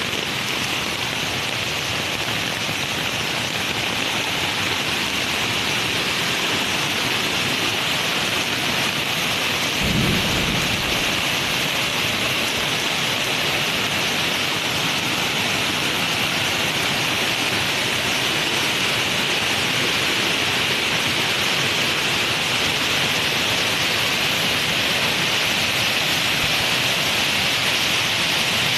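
Rainstorm: heavy rain falling in a steady hiss, with a short low rumble of thunder about ten seconds in.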